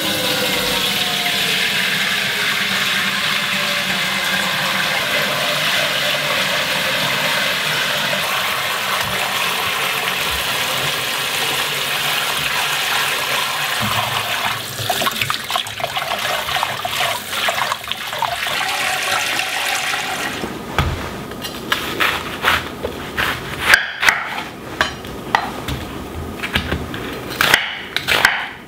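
Kitchen tap running steadily into a bowl of water in a stainless steel sink, then hands sloshing and rubbing potatoes in the water from about halfway through. Near the end, a series of sharp knocks: a knife cutting through an onion onto a wooden cutting board.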